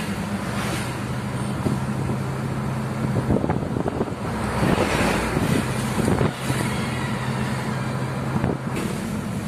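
A car driving along a road, heard from inside the cabin: a steady engine and tyre drone with traffic noise, swelling louder about halfway through.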